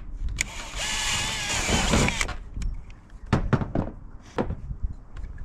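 A cordless drill runs for about a second and a half, boring a rivet hole through the metal roof flashing, its motor pitch wavering under load. It is followed by a few sharp snaps from a hand pop-rivet gun.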